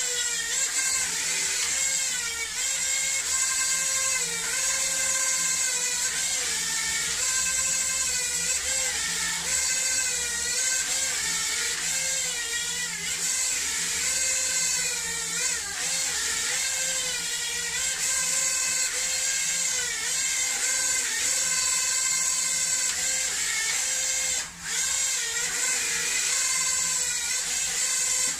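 Small propeller motors of an Eachine E015 toy drone, mounted in its hovercraft-boat shell, whining steadily, the pitch rising and falling as the throttle changes and dipping out briefly near the end.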